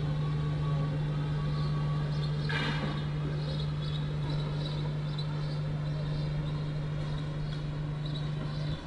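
Steady low machine hum that cuts off suddenly near the end, with a brief hiss about two and a half seconds in and faint high chirps above.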